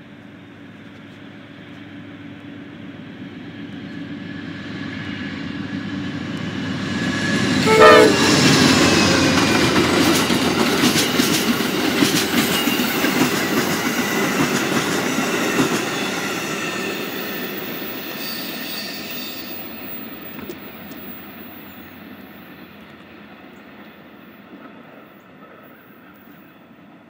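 Amtrak GE P42DC diesel locomotive leading a passenger train past at speed: it builds up as it approaches, its horn sounding as it draws level about a third of the way in, the horn's pitch dropping as it goes by. The cars then roll past with wheels clicking over rail joints, and the train fades away.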